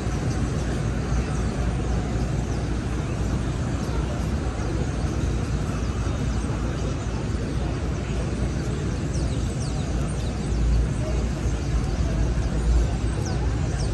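Steady city street traffic noise: a low rumble of engines and tyres that swells slightly after about ten seconds, with a few faint high squeals.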